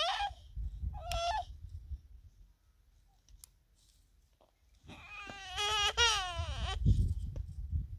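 A person crying: a short high wail about a second in, then a longer wail about five seconds in that falls in pitch at its end. Low thumps or rumbles come with the crying.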